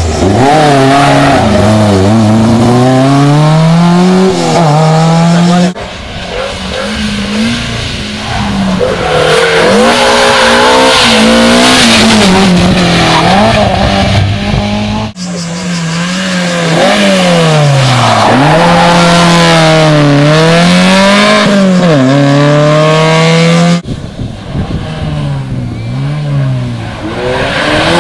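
Historic rally car engines at full throttle on a special stage, revving up and dropping back again and again through gear changes as each car passes. Several cars are heard one after another, with the sound breaking off abruptly between them.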